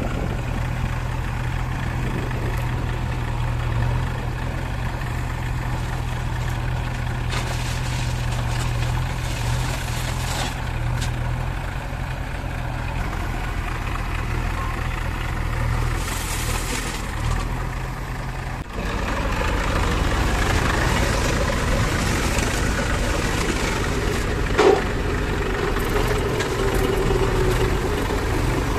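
Diesel engine idling steadily with an even low hum. After a cut about two-thirds through, an Eicher tractor's diesel engine running under way, heard from the driver's seat, louder and rougher, with one short knock near the end.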